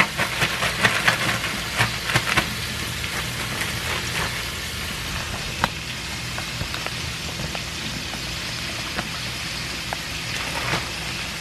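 Chicken pieces frying in hot oil: a steady sizzle with crackling pops. The crackle is busiest in the first couple of seconds, as the last pieces go into the pan, then settles to an even hiss with occasional pops.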